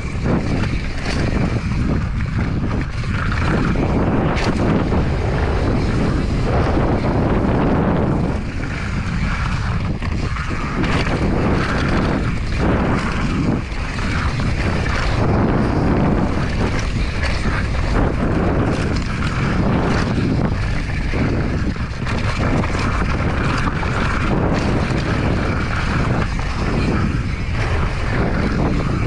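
Wind buffeting an action camera's microphone as a downhill mountain bike descends a dirt trail at speed. Tyres run over dirt, and the bike rattles and knocks over bumps.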